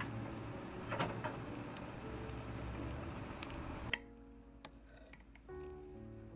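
Stainless-steel oven door gripped and pulled open: a metallic clunk about a second in and a few light clicks over a steady low hum. After a sudden cut near four seconds, a few soft clicks of a metal server cutting through baked lasagna, then gentle music begins.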